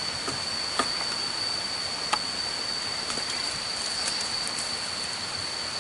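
A steady, high-pitched insect drone over outdoor background hiss, with two sharp clicks about one and two seconds in.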